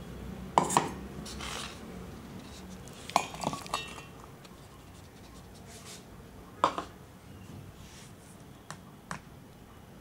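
Kitchenware clinking and knocking: cooked tomato, onion and green chilli pieces are moved from a bowl into a stainless-steel mixer-grinder jar, with about five short, sharp knocks spread through.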